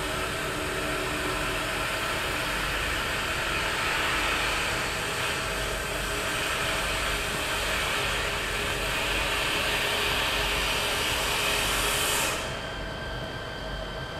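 Three-spindle CNC wood lathe turning wooden chair legs: a steady hiss of the cutters shaving the spinning wood over the machine's hum. About twelve seconds in the cutting hiss cuts off suddenly, leaving the machine running with a quieter hum.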